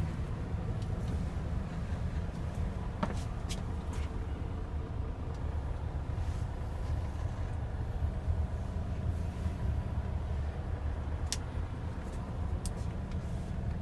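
Kia Parkway coach's diesel engine idling steadily, heard from inside the cab, with a few light clicks.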